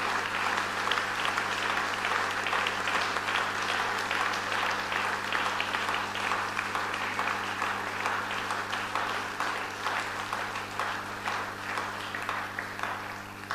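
Congregation applauding: dense, steady clapping that tapers off toward the end.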